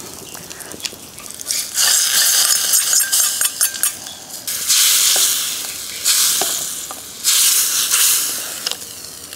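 A hot tempering of mustard seeds, dried red chillies, curry leaves and asafoetida in oil, sizzling and hissing as it hits green gram saaru in a steel pot. There is a long sizzle from about two seconds in, then three shorter bursts of about a second each, with a few light clicks of the ladle.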